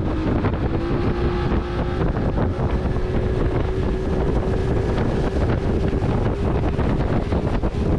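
Small outboard motor running at speed, pushing an open boat across the water, holding a steady pitch. Wind buffets the microphone throughout.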